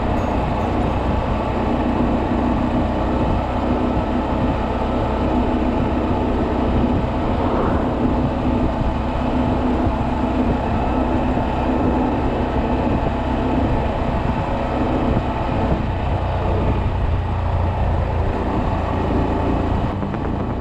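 A 2020 Honda Monkey's 125 cc single-cylinder engine running steadily at road speed as the bike is ridden, with a brief rising tone about seven and a half seconds in.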